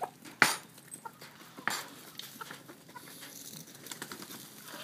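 Chickens clucking and giving short calls as they come out of the coop, with two sharp knocks, the louder about half a second in and another just under two seconds in.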